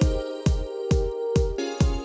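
Electronic music with a steady deep kick-drum beat, a little over two beats a second, under held chords that move to a new chord about one and a half seconds in.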